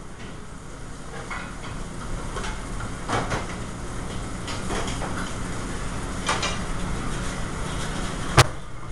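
Restaurant kitchen line at work: a steady low hum under scattered clatter of pans and utensils, with one sharp, loud clank near the end.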